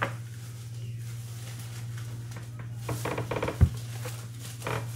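A short giggle about three seconds in, followed at once by a single sharp thud, the loudest sound, over a steady low hum.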